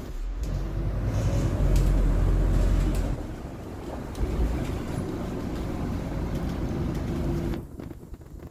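Interior noise of a Scania articulated city bus under way: a steady low engine and drivetrain rumble with road noise, swelling for about a second around two seconds in, then steady, and falling away sharply near the end.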